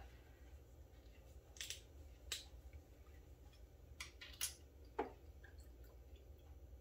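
A few faint, scattered clicks and taps from a miniature plastic bottle of whipped cream vodka being handled and its cap twisted open over the countertop, about five in all.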